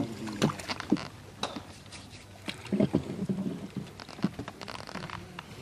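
Scattered small knocks, clicks and splashes of a hook-chain fishing line being hauled by hand out of shallow water into a wooden boat.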